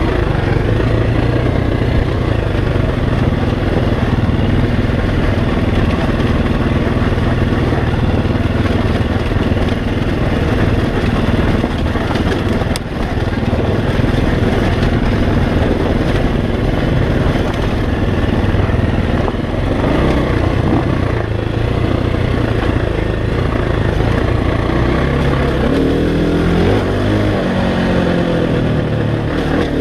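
2016 KTM 350 XCF-W's single-cylinder four-stroke engine with a full Akrapovic exhaust, pulling the bike along a dirt trail. It holds a fairly steady pitch at first. From about two-thirds of the way in it revs up and down repeatedly as the throttle is worked.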